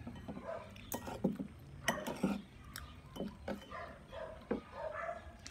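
A metal fork and spoon clicking and scraping on a plate, with a dog barking on and off in the background.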